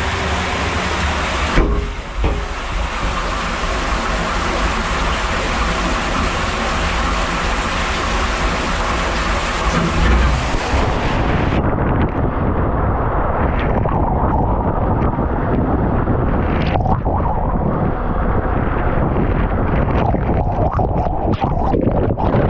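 Loud rushing water and wind noise on a waterproof camera's microphone during a waterslide ride. About halfway through the sound goes muffled and loses its hiss, with scattered knocks and crackles.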